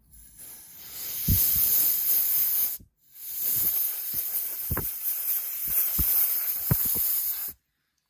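Compressed air hissing from a nozzle to blow dust off the phone, in two long blasts: the first stops briefly near three seconds in and the second cuts off a little before the end. A few light knocks sound under the hiss.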